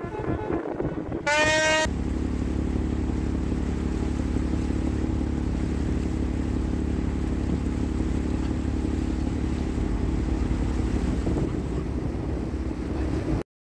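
A ship's horn sounds one short blast about a second in. A boat's diesel engine follows with a steady low drone, which cuts off suddenly near the end.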